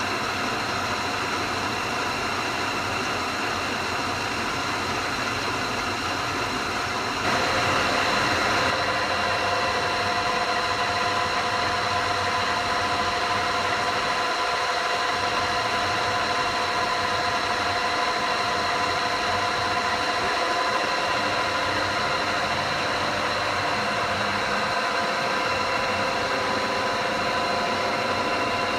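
PAMA ACC 127 P CNC table-type boring machine running at maximum rotation: a steady machine hum with several steady whining tones. About seven seconds in it gets a little louder, with a brief hiss, and new tones come in.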